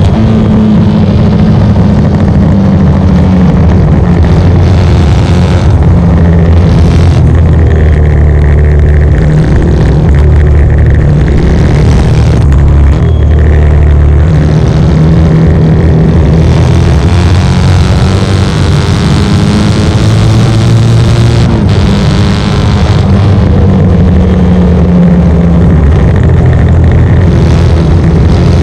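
Short-stroke 1972 Norton 750 Commando parallel-twin engine racing at full throttle, heard loud from on board the bike. Its pitch climbs, then drops in steps several times as the rider shifts gear and rolls off for corners.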